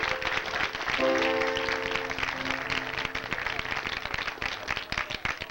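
Live blues band holding a sustained chord over audience applause. The chord fades about halfway through and the clapping carries on, thinning near the end.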